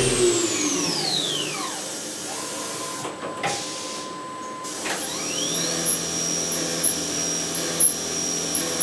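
CNC milling machine spindle of an OPTIMUM F-150 winding down with a falling whine, then spinning back up with a rising whine to a steady high pitch while drilling an aluminium block.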